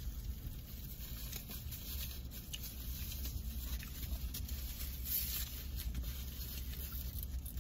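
Faint rustling, scraping and small clicks of a plastic fork and clear plastic takeout dessert containers being handled while eating, over a steady low hum.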